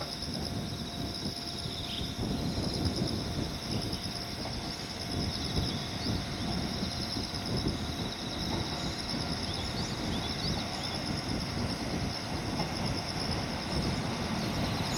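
DD51 diesel-hydraulic locomotive hauling Hoki 9500 limestone hopper wagons, approaching from a distance. Its diesel engines and the train make a low rumble that grows slightly louder from about two seconds in.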